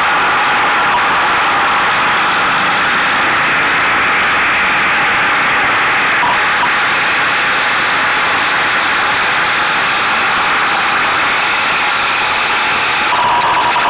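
Steady rush of wind noise over the microphone of a camera mounted on a Buell motorcycle's mirror stalk while riding, with the bike's engine running underneath.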